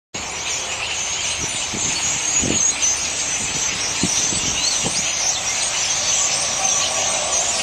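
A huge flock of birds calling all at once: a dense, steady mass of overlapping high-pitched chirps and squeaks.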